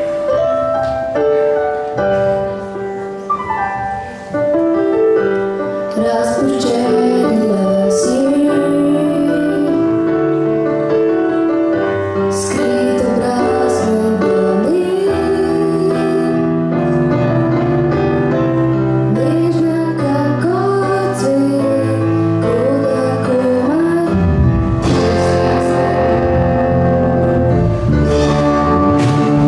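School rock band playing a song live: keyboard and guitars under a young singer's voice, with the full band, drums included, coming in fuller near the end.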